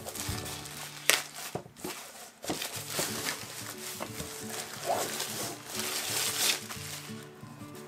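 Thin white protective wrapping torn open and pulled off a picture frame by hand, rustling and crinkling in several bursts, with a sharp tap about a second in.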